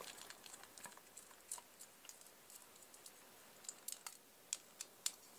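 Faint, scattered clicks of a screwdriver working the small bolt on a soldering iron's metal barrel collar, with the clicks coming closer together in the second half.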